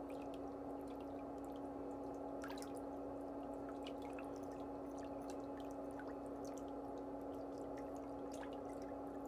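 Steady low electrical hum with faint scattered ticks and scrapes from a metal nail curette working under the toenails.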